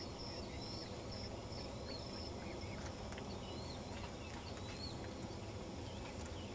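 Small birds chirping in short, repeated rising-and-falling calls over a steady low rumble, with a high, evenly pulsing note for the first two seconds.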